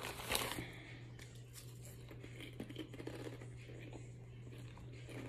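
Faint crinkling of a plastic snack bag and soft crunching from someone eating a snack, over a steady low hum.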